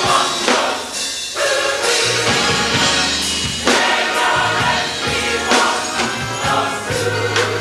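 Gospel choir singing a hymn together.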